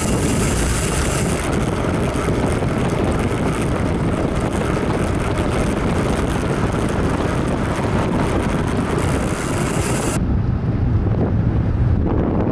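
Wind buffeting the microphone of a handlebar-mounted camera on a moving bicycle, over a steady low road rumble. About ten seconds in, the hiss drops away suddenly while the rumble carries on.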